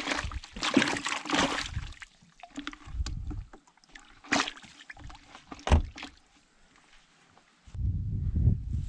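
Water splashing and sloshing in short bursts as a plastic bucket of muddy pond water with freshly caught fish in it is dipped and handled, with a couple of sharp splashes in the middle and a low rumble near the end.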